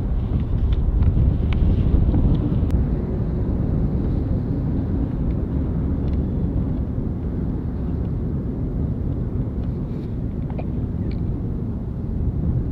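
Distant Airbus A310 jet airliner flying on the downwind leg of its approach at about 4,000 ft: a steady low rumble from its engines, mixed with wind noise on the microphone.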